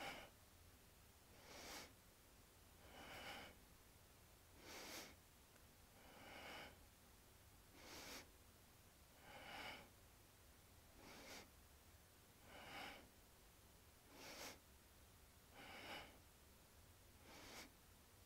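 Faint, steady rhythmic breathing, a breath about every second and a half, paced to alternating leg pumps while lying on the back in a kundalini yoga exercise.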